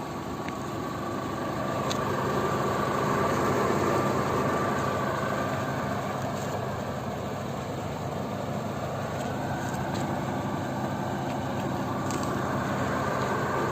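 Electric drill with a sanding pad running steadily against the car's painted bodywork, its sound swelling and easing slightly as the pad works the panel.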